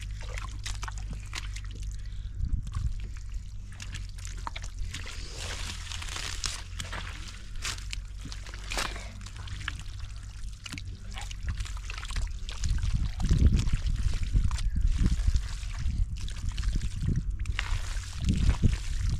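Shallow water splashing and sloshing in many short strokes, with heavier, deeper sloshes from about two-thirds of the way through.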